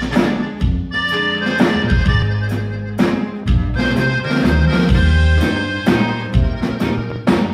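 Live band playing an instrumental piece: an accordion carries the melody in held notes over electric bass, acoustic guitar and regular drum-kit beats.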